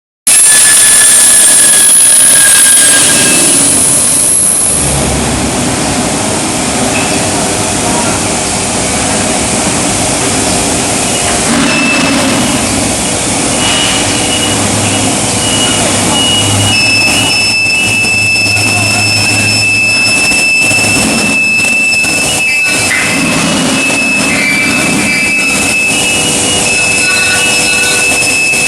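High-frequency welding line for I-beams running: loud, steady industrial machine noise with several high-pitched whines held over it, more of them from about the middle on.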